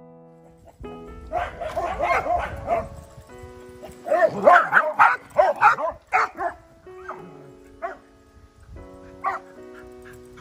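Dogs barking in quick runs of barks, with a first run about a second in and a louder one about four seconds in, then a few single barks. Soft piano music plays underneath.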